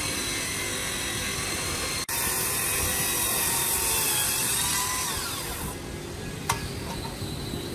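Circular saw cutting through a thick solid-wood slab with a loud, high-pitched cutting noise. About five and a half seconds in, the motor's pitch falls as the blade winds down, and a sharp click follows about a second later.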